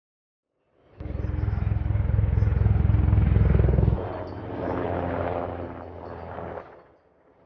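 NHIndustries NH90 twin-turbine helicopter flying past overhead, its main rotor beating rhythmically under the engine noise. The sound starts about a second in, drops abruptly at about four seconds and continues quieter, dipping briefly near the end.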